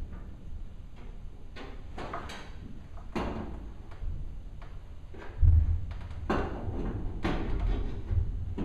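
Pneumatic rivet gun driving rivets into the aluminium wing of a Van's RV-7 kit aircraft: a series of short, sharp bursts at irregular intervals, one every second or so, over a steady low hum.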